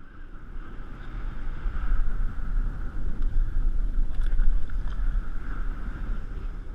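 Strong wind buffeting the camera microphone in uneven gusts, over choppy water around a drifting boat, with a steady hiss throughout.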